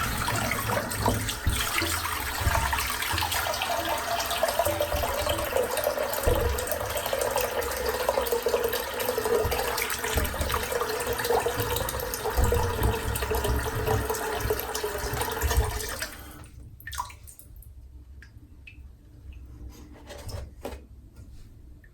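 Tap water running into a sink, with a tone that falls a little as it goes; the tap is shut off about 16 seconds in, followed by a few drips and small knocks.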